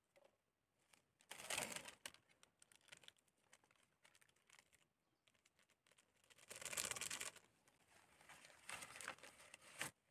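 Faint rustling and crinkling, in three short bursts separated by quieter stretches.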